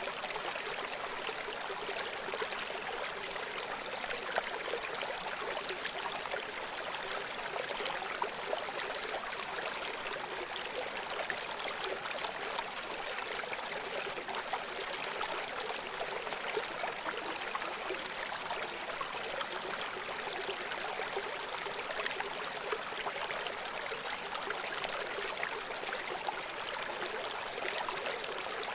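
Running stream: water flowing and splashing steadily over rocks, a continuous trickling rush with small splashes flickering through it.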